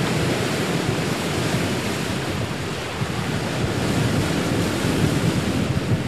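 Steady rushing noise of wind and ocean waves, with some wind buffeting the microphone.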